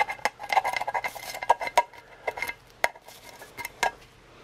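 P-38 can opener working around the rim of an old C-ration can, a quick run of sharp metallic clicks and scrapes with a brief ring from the can, growing sparse near the end.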